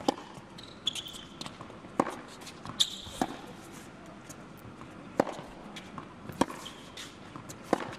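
Tennis rally on an indoor hard court: sharp pops of the ball off the racket strings alternating with ball bounces, roughly one knock a second, over a low hall murmur.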